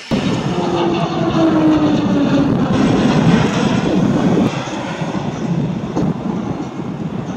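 Pilatus PC-7 Mk II turboprop's engine and propeller running at power as the trainer goes by, the pitch falling gently as it passes. The sound drops to a lower, steadier drone about four and a half seconds in.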